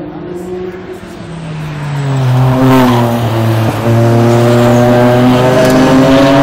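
GT race car engines at race pace. One engine's note falls away about a second in, then a louder one dips in pitch and climbs steadily as a car approaches and passes close, the sound growing loud from about two seconds in.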